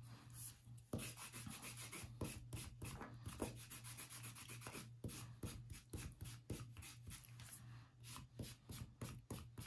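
Foam-tipped ink dauber rubbed over a chipboard sheet to ink it, a faint, quick run of short scuffing strokes, a few each second.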